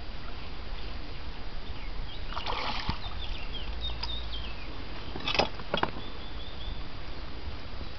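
A hooked carp splashing at the surface as it is played on a fishing rod, two brief splashes about two and a half and five and a half seconds in, over a steady low wind rumble on the microphone. A bird chirps in between.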